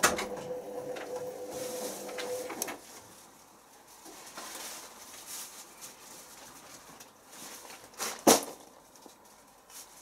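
Hoover Optima front-loading washing machine in its wash phase: the drum motor hums as the drum tumbles and stops about three seconds in. The drum then pauses, with faint splashing and clicks of water and a single sharp knock near the end.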